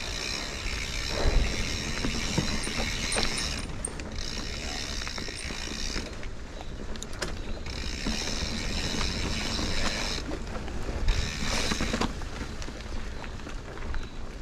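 Mountain bike riding over a rocky trail: mechanical ratcheting and rattling from the bike, with scattered knocks and a loud thump about a second and a half in.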